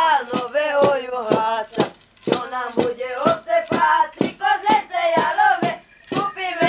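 A group of boys singing a Christmas carol in unison, chanted in short syllables at a quick, even rhythm, with brief pauses about two seconds in and near the end.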